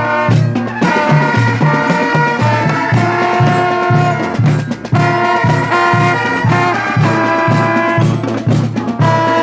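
Upbeat music with brass horns playing over a bouncing bass line that pulses several notes a second.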